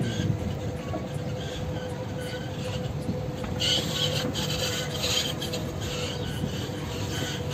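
Ride in a free visitor shuttle taxi: a steady rolling rumble with a constant whine and scattered squeaks and rattles. A louder hiss rises for about two seconds midway.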